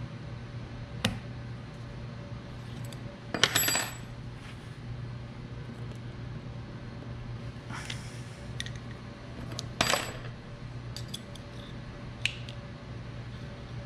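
Steel hollow gasket punch being handled and pressed into a gasket template, giving several sharp metallic clinks, loudest twice, with a short high ring after them. A steady low hum runs underneath.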